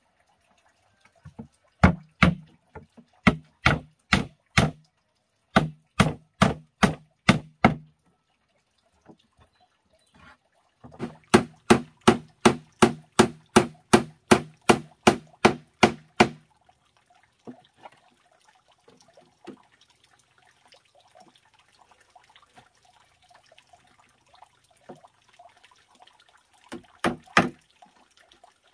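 Hammer driving nails into wooden boards: three runs of quick, steady blows, about three a second, in the first half, then a few more blows near the end.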